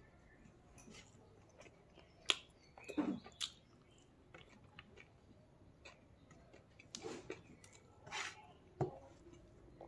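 Close-up eating sounds of a man eating rice and curry by hand from a steel plate: fingers scraping and gathering food on the plate, and chewing and mouth smacks. The sounds come as scattered short clicks and smacks, the sharpest about two seconds in.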